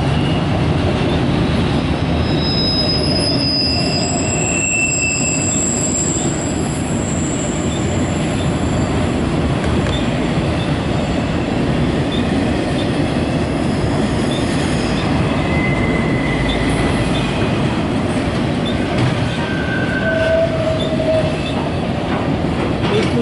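Loaded autorack freight cars rolling past in a steady loud rumble of wheels on rail, with high-pitched wheel squeals coming and going, most strongly in the first few seconds and again briefly near the middle and toward the end.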